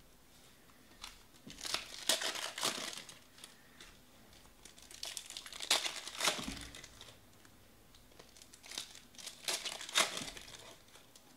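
Foil wrapper of a 2019 Panini Elite Extra Edition trading-card pack crinkling and tearing as it is ripped open by hand. The crinkling comes in three spells, each a second or two long, a few seconds apart.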